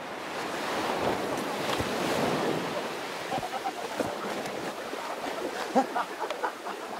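Surf breaking and washing up the beach around people wading in the shallows, swelling to its loudest about one to two seconds in, with short splashes in the water near the end.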